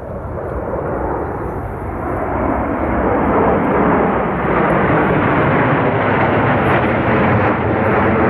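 Military aircraft flying low overhead: engine noise that grows louder over the first few seconds, then stays loud and steady.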